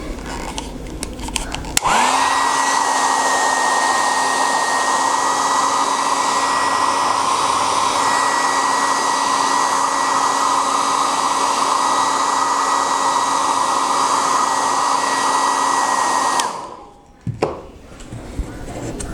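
Electric hot-air blower switched on about two seconds in, running steadily with a constant hum and a higher whine, then switched off near the end. It is used to heat the phone and soften the glue holding the broken screen.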